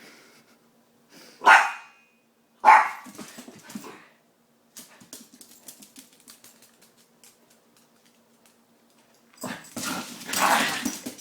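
Dog barking: two sharp barks about a second apart, then a string of small clicks, then a longer noisy scuffle near the end.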